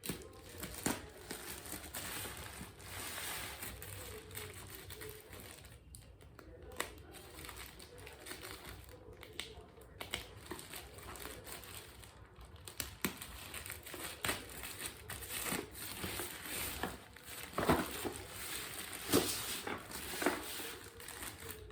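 Parcel packaging being handled and torn open: crinkling and rustling with tearing, and a few louder sharp crackles in the last few seconds.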